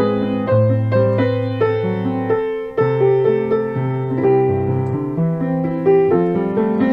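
Piano being played: a flowing passage of chords, with a new low bass note held about every second under shifting higher notes.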